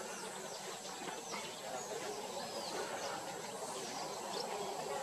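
Scattered short, high bird chirps over a steady hiss of outdoor background noise, with a thin, high, unbroken tone running underneath.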